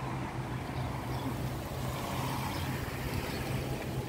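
Kia Sedona's 3.8-litre V6 engine idling steadily with a low, even hum.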